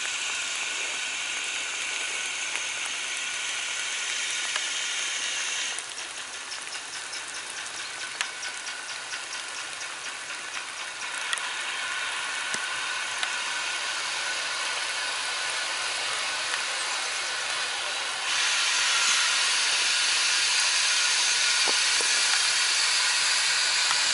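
Steam locomotive hissing steam, a steady hiss. About six seconds in the hiss drops and a run of quick light ticks follows for several seconds. About eighteen seconds in the hiss grows louder as the engine moves off under steam.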